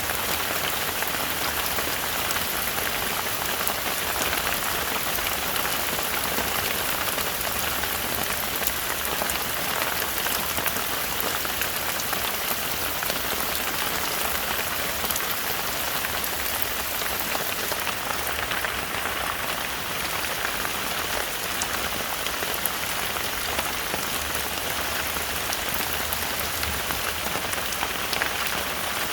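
Heavy rain falling in a forest, a steady dense patter of drops.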